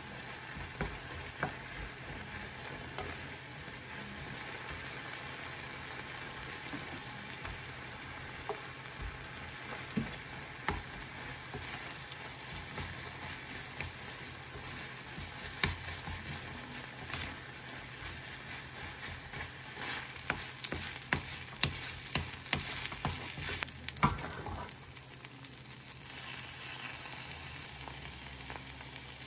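Kimchi fried rice sizzling in a nonstick frying pan on a gas burner while a wooden spatula stirs it, knocking and scraping against the pan now and then. The knocks come thicker a little past two-thirds of the way through.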